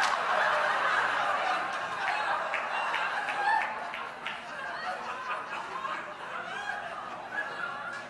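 Audience laughing, many voices together, the laughter gradually dying away.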